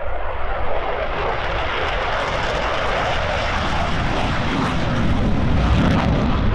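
F-16 fighter jet's engine noise as the jet passes and banks overhead: a steady rushing roar that slowly grows louder, with a deep rumble building near the end.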